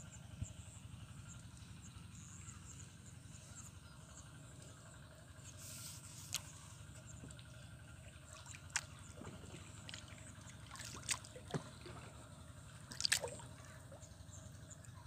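A handful of short, irregular water splashes and drips over a steady low background rumble, the loudest cluster near the end, as a fishing lure is worked back across the water surface.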